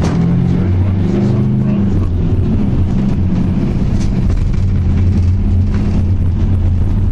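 Bus engine running under way, heard from inside the bus as a steady low hum with road noise.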